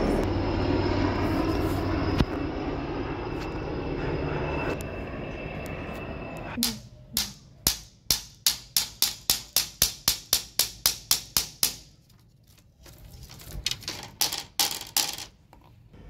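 A steady background drone for the first six seconds or so, then a hammer driving nails into wooden fence slats: a run of about fifteen evenly spaced blows, roughly three a second, a short pause, and a quicker run of strikes near the end.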